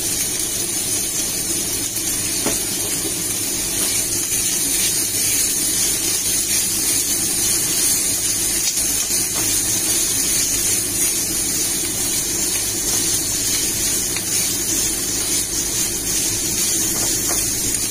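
Spiral pasta and pesto sizzling in a hot cast iron skillet: a steady frying hiss over a low, even hum, with a few faint clicks as a spatula stirs the pan.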